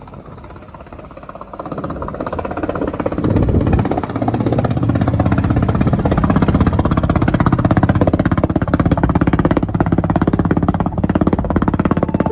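Inboard engine of a wooden passenger boat passing close, running with a fast, even pulsing that grows louder over the first few seconds as the boat approaches, with background music.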